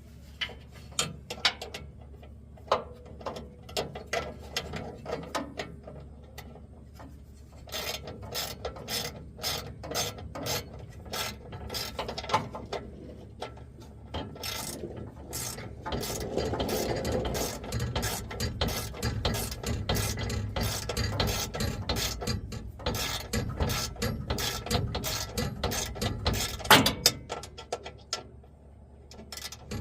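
Hand ratchet wrench clicking as it turns a fastener: short spells of clicks at first, then steady rapid ratcheting from about eight seconds in that stops near the end.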